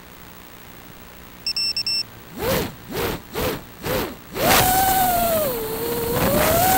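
FPV quadcopter's brushless motors: after a quick run of high electronic beeps, the motors are blipped four times, each a short whine that rises and falls. They then spin up to a steady, wavering whine as the quad lifts off.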